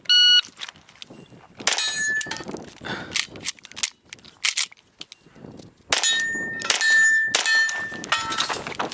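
A shot timer's start beep, then rapid 9mm pistol shots from a Canik Rival in two strings, with a pause of about a second and a half between them. Steel targets ring after several of the hits.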